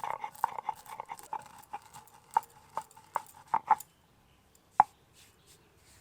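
Dry-roasted whole spices being pounded with a pestle: a quick, uneven run of sharp knocks with a short ringing note, slowing to a few strikes and one last knock near the end.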